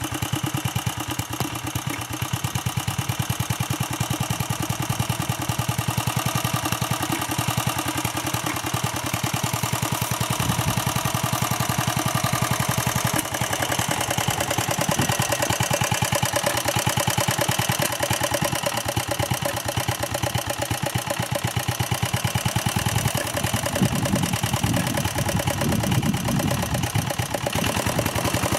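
A 1957 Staub PP3B walk-behind tractor's engine running steadily with rapid, even firing pulses. In the last few seconds it takes on a heavier, deeper sound as the rotovator works through the garden soil.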